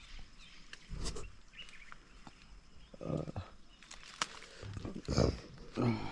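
Close mouth noises of someone eating a ripe mango: several short wet slurps and chewing sounds, separated by pauses.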